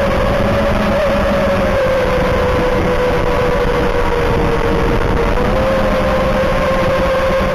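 Eachine Wizard X220 quadcopter's motors and propellers whining steadily in flight, heard from the drone's own camera over a rush of air noise; the pitch wavers slightly with the throttle.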